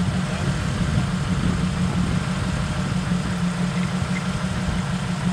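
Land Rover Defender engine running at low revs as the truck crawls down a steep dirt slope, a steady low drone without changes in pitch.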